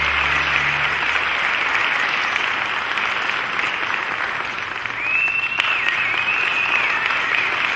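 Audience applauding, with the last note of the music dying away in the first second and a shrill, high cheer rising over the clapping from about five seconds in.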